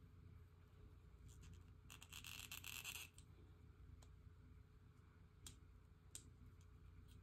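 Near silence with a low hum, broken about two seconds in by roughly a second of quick scratching, followed by a few faint single clicks.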